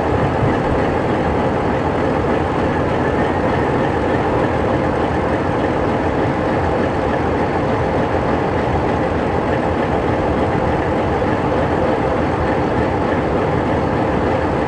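Alco C420 diesel locomotive's engine running steadily at idle, a loud even rumble with no horn sounding.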